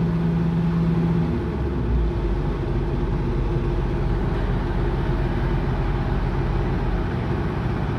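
Steady mechanical hum and noise, with a low tone that cuts off about a second and a half in while a higher hum carries on.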